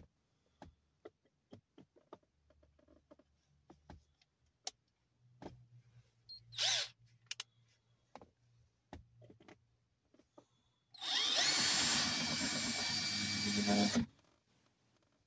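Power drill running for about three seconds near the end, its motor whine rising as it spins up, then stopping suddenly. Before that come scattered light clicks and knocks, with one brief burst about halfway through.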